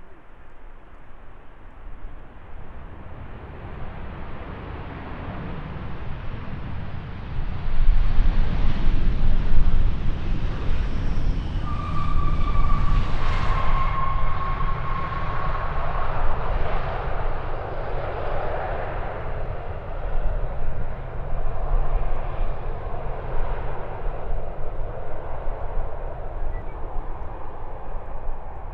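Jet airliner passing close by. Its engine noise builds up, peaks, then slowly fades, with a fan whine that drops in pitch as the aircraft goes past.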